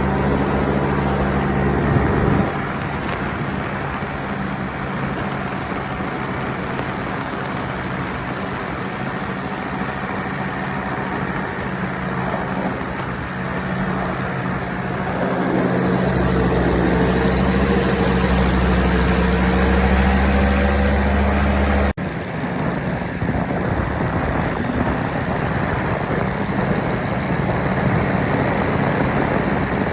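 Paramotor engine running, its steady low hum coming and going under heavy wind rushing on the microphone. The sound breaks off abruptly about 22 seconds in, leaving the rushing wind noise.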